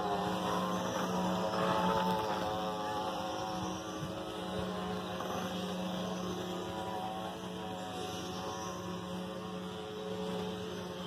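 Wooden axles of passing ox carts singing, wood turning against wood: a steady droning moan of several overlapping tones that waver slightly.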